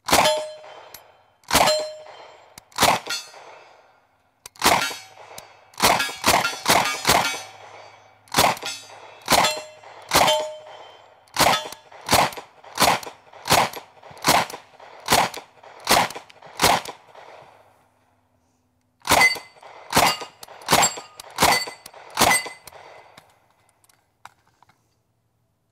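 A Thompson M1A1 submachine gun in .45 ACP fired on semi-automatic: about two dozen single shots, some spaced about half a second apart and others slower, with a short pause about two thirds of the way through. Steel target plates ring after many of the hits.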